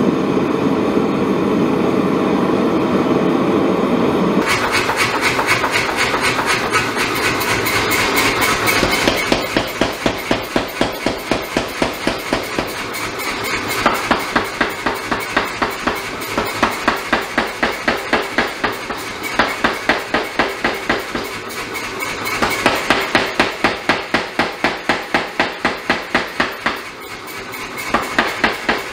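Gas forge burner running with a steady rush for about four seconds, then a power hammer pounding a red-hot damascus knife blank in rapid, evenly spaced blows, about four to five a second, in several runs with short pauses between them.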